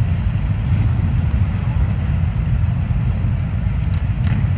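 A pack of Harley-Davidson motorcycles with their V-twin engines running together, making a steady low rumble.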